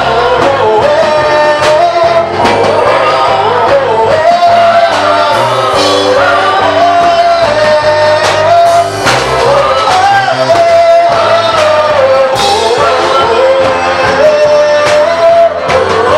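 A gospel praise team singing a praise song in several voices over a band, with a bass line moving under the melody and drum hits keeping the beat.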